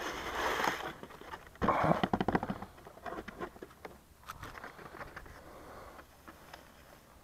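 Dry grass rustling and crackling as a crashed foam RC jet is picked up out of it. There is a rush of noise in the first second, and the loudest stretch is a quick run of crackles about two seconds in, followed by faint scattered ticks.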